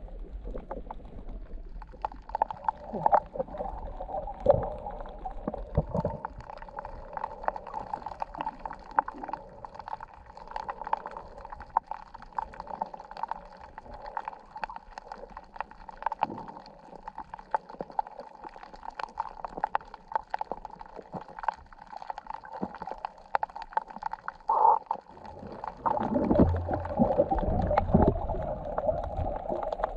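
Muffled water gurgling and sloshing around a camera in the sea while snorkeling, with many scattered sharp clicks; it grows louder about 26 seconds in.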